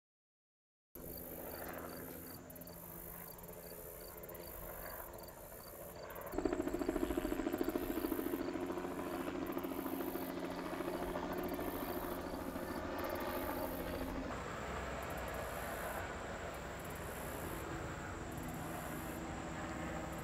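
Summer insects chirring steadily at high pitch with a light repeated tick. About six seconds in, the steady drone of the Goodyear airship Wingfoot One's propeller engines joins them and becomes the loudest sound.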